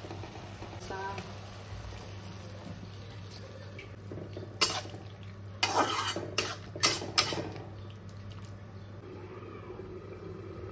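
Chicken frying in a kadhai while a utensil stirs it, scraping and clanking against the pan in a quick run of strikes about halfway through.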